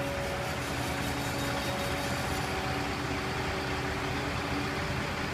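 Caterpillar 299D XHP compact track loader's diesel engine running steadily as the machine carries a load of steel building framing on its forks, with a few steady tones held over the engine noise.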